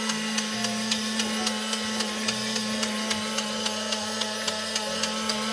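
Battery-powered toy bubble machine running: a steady motor hum with a regular clicking, about three clicks a second.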